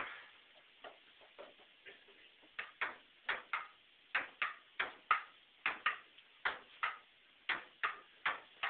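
Ping-pong rally played with stools for paddles: the ball clicks sharply on the table and off the stools, a few hits every second, often in quick pairs of bounce and return.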